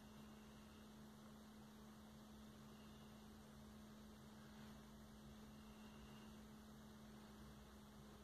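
Near silence: a faint steady electrical hum over low hiss.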